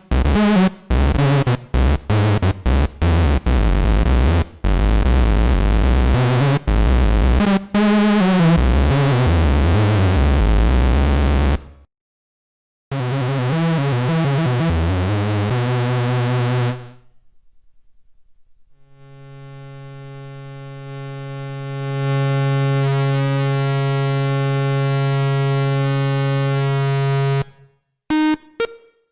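Ad-vantage 03M DIY analogue synthesizer playing. First comes a run of short, bass-heavy notes whose tone keeps shifting as the filter moves. After a brief cut about 12 seconds in, a note plays with its tone sweeping, then a long steady note swells in slowly, holds, and stops, followed by a few short blips near the end.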